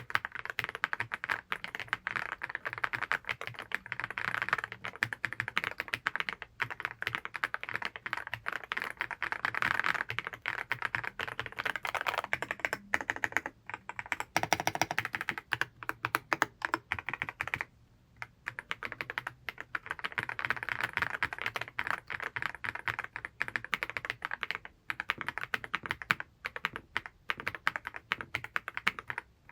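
Fast, continuous typing on a Yunzii C75 Cake mechanical keyboard with Candy switches: a dense clatter of keystrokes, broken by a few brief pauses.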